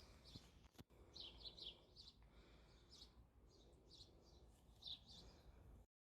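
Faint birds chirping: a string of short, high chirps over low background noise. The sound cuts off abruptly near the end.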